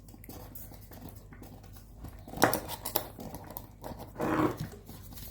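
Kitchen utensils clinking against a cooking pot, with two sharp knocks about halfway through. Near the end there is a short pitched call.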